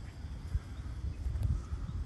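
Wind rumbling on the microphone in uneven gusts, with a couple of stronger buffets about half a second and a second and a half in.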